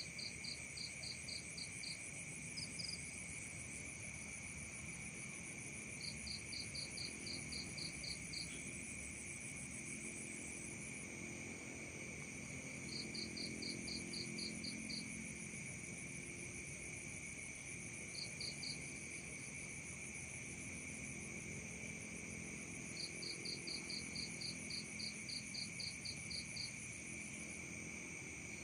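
Night chorus of crickets and other insects: several steady high trills at different pitches, with a chirping call in runs of quick, evenly spaced pulses that comes back every few seconds.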